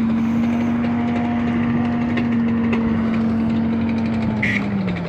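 Aircraft engine droning steadily overhead, its pitch dropping a little near the end as it passes. A brief high chirp sounds just before the pitch drop.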